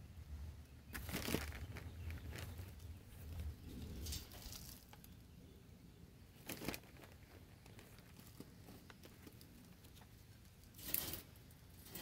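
Hands working potting soil around a plant in a large pot: scattered rustling and crunching in a few short bursts, with quieter gaps between.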